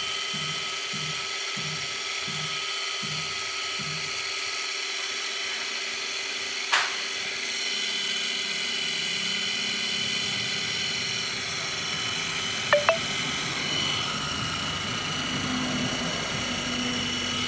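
Small electric motors of a toy RC helicopter spinning its rotors at a steady speed: a steady high-pitched motor whine with rotor buzz. A single sharp click about seven seconds in, and two quick ticks at about thirteen seconds.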